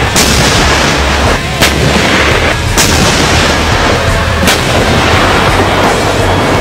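M1A2 Abrams tank's 120 mm main gun firing: four loud blasts, each trailing off in a rumble, over the first four and a half seconds.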